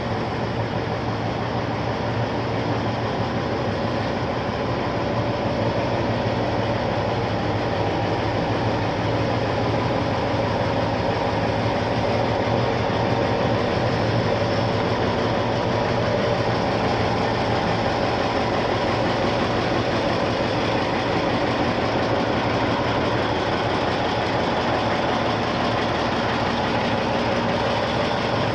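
Heavy diesel engine of a large all-terrain mobile crane running steadily with a low hum, growing a little louder over the first several seconds.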